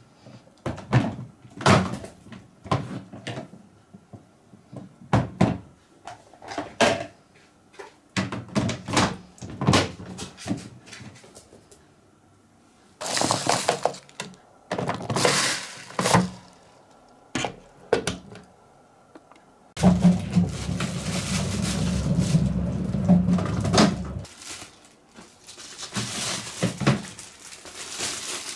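Plastic clicks and knocks from a LittyCat cat-litter disposal bin's lid and liner cassette being handled. A plastic scoop then tips used cat litter into the bin with a gritty rattle, followed by about four seconds of steady rushing noise, and crinkling plastic film near the end.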